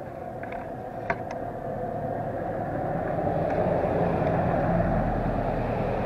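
A motor vehicle running and moving, with engine hum and rushing tyre noise that grow louder over a few seconds and then ease off. A single sharp click about a second in.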